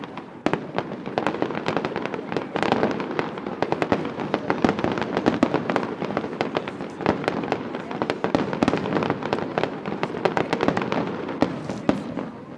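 Fireworks display: a rapid, dense string of bangs and crackling bursts, many overlapping, thinning out near the end.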